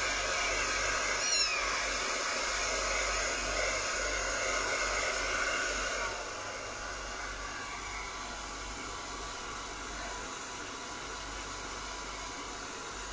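Hand-held hair dryer blowing steadily on a kitten's wet fur, a little quieter from about six seconds in. A brief high kitten mew about a second in.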